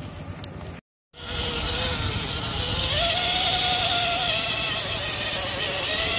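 Electric motor and gearbox of a radio-controlled scale crawler truck whining as it drives, the pitch climbing about halfway through and wavering with the throttle. The sound cuts out completely for a moment about a second in.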